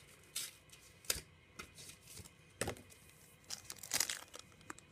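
Foil Pokémon card booster pack being torn open by hand, crinkling and crackling in irregular bursts, loudest about four seconds in.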